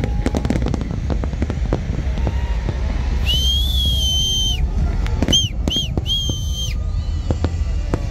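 Aerial fireworks bursting in quick succession, a dense run of sharp bangs and crackles over a low rumble that thins out later. Near the middle a shrill whistle sounds: one long, two short, then one long.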